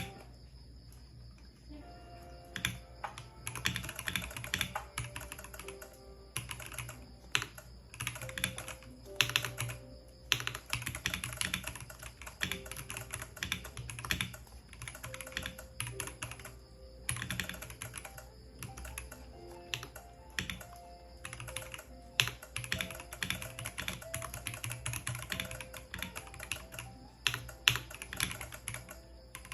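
Typing on a Royal Kludge H81 mechanical keyboard with tactile brown switches: fast runs of key clicks starting about two seconds in, broken by short pauses.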